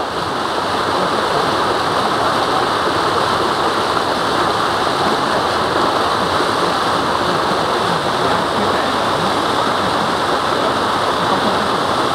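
Steady rushing of running water, an even hiss that does not change in level.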